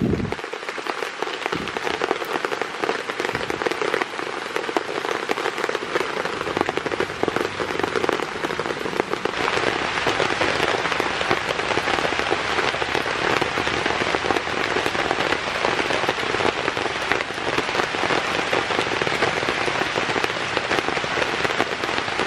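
Heavy rain pattering on a shelter, a dense, steady hiss that grows heavier about nine seconds in.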